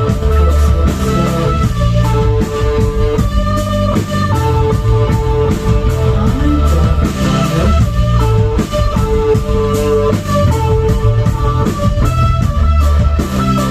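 Live post-punk band playing an instrumental passage with no vocals: electric guitar with a held, repeating note over bass guitar and a drum kit.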